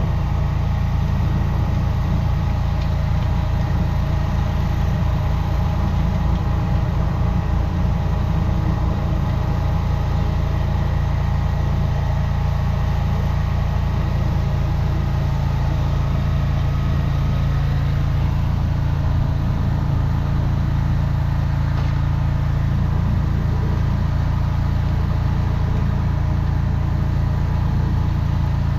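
Engine of a high-pressure drain jetter running steadily at a constant speed.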